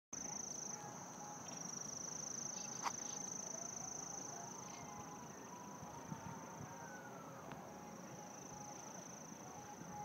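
A steady, high-pitched insect trill that breaks off briefly about a second in, with a single click about three seconds in.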